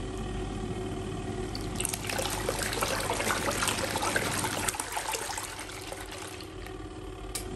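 Portable folding washing machine running: water churning and splashing in its tub over a steady motor hum. The splashing grows louder for a couple of seconds in the middle.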